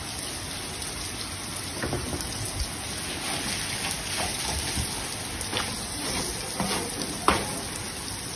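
Heavy rain falling on a hard, wet floor: a steady hiss, with a few short knocks scattered through it, the sharpest near the end.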